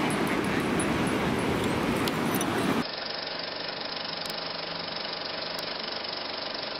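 Surf washing on a sandy beach, loud and steady. About three seconds in it cuts off sharply to a quieter, muffled, steady mechanical whirring and clatter of an old film projector running.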